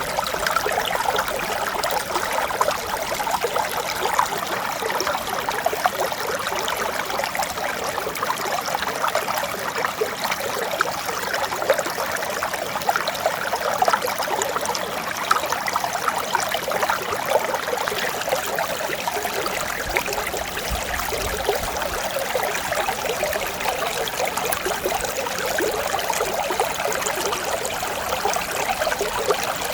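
Mountain stream flowing steadily, a gentle babbling made of many small splashes and trickles. A faint low rumble comes in during the last third.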